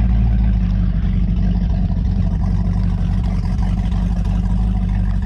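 A bass boat's outboard motor running steadily.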